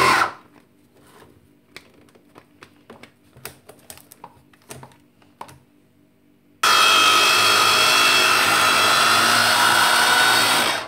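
Small electric mini chopper running with a steady whine while it mixes a crumbly chickpea-flour dough. It stops just after the start. A series of light clicks and knocks follows. It starts again about two-thirds of the way in and runs until just before the end.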